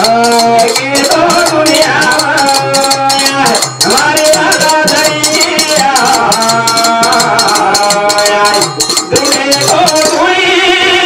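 Devotional bhajan singing: a voice holds long, sliding notes over a jingling hand percussion that keeps a steady, quick beat. About a second before the end the jingling stops and held instrumental notes carry on.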